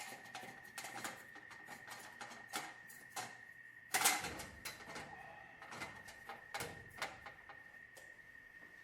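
Irregular clicks and knocks of tools and metal parts being handled during installation work, the loudest about four seconds in, over a faint steady high-pitched whine.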